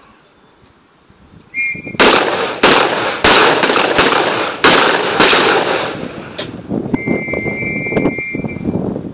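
M14 rifles fired by several shooters, single shots: about eight loud sharp cracks, each with an echoing tail, coming irregularly over about four and a half seconds after a quiet start, then fainter shots. A short high beep sounds just before the first shot, and a steady high tone lasts about a second and a half near the end.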